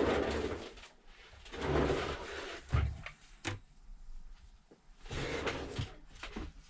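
Handling noises as a replacement phone screen is fetched: three short scraping, rustling sounds, with a low knock a little before the middle and a sharp click just after it.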